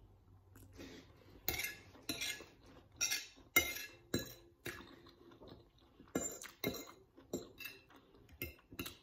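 Metal fork and knife clinking and scraping against a ceramic dinner plate while cutting and picking up food: a series of sharp clinks, about one or two a second, starting about a second and a half in.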